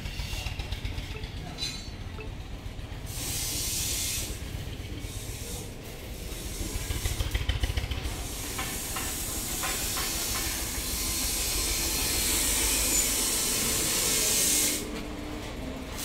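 Steady hissing noise over a low rumble, swelling about three seconds in and again from about six seconds until it drops away shortly before the end, with a few short clicks in the middle.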